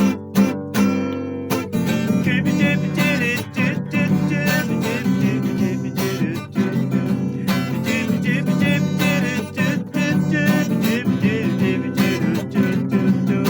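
Strummed acoustic guitar playing an instrumental passage of a song, with a wavering melody line over it in places.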